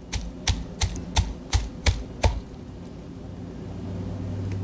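Cleaver chopping on a wooden chopping board, mincing pork, shrimp and mushrooms together: about seven sharp chops, roughly three a second, stopping a little past two seconds in.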